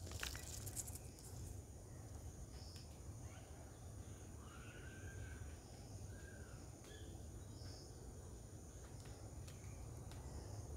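Outdoor ambience: a steady high-pitched insect drone over a low rumble, a cluster of sharp clicks in the first second, and a few short bird calls between about four and six seconds in.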